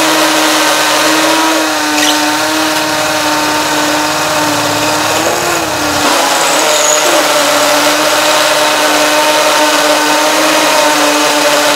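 20V cordless hammer drills boring into a concrete block with a 3/8-inch masonry bit: a steady motor whine under load over a grinding rattle. The pitch wavers briefly about five seconds in.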